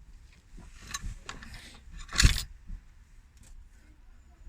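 Light clicks and scrapes of hand-work with tools and parts on an engine, with one louder knock a little over two seconds in.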